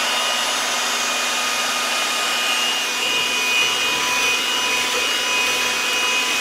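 Electric hand mixer running steadily at one speed with a constant whine, its beaters whipping egg whites in a plastic bowl as sugar is added to make meringue.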